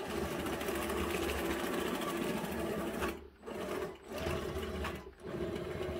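Two 12-volt worm gear drive motors in an RC-converted Bruder CAT bulldozer running its tracks as it turns: a steady mechanical whir that stops briefly three times in the second half.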